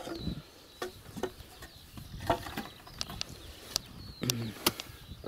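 Irregular sharp knocks of hand tools, a shovel and an iron bar, striking earth and stones around wooden piles, about seven in all, with a faint bird chirp.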